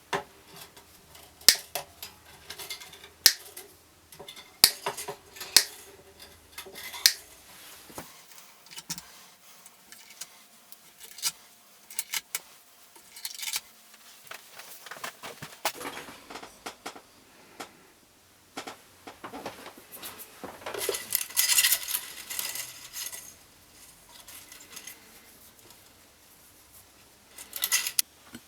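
Small metal parts clinking and rattling, as when guitar hardware is handled and set down during a teardown: sharp separate clinks every second or two at first, then lighter ticking, and a denser, louder jingling rattle about three-quarters of the way through and again near the end.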